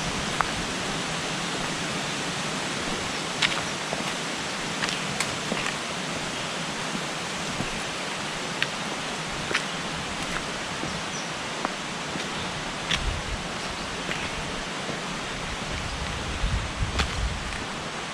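Steady rush of running water, like a stream or waterfall, with scattered sharp clicks over it.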